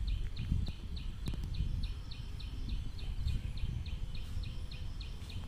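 Outdoor ambience: a high chirping call repeated steadily, about five chirps a second, over an uneven low rumbling noise.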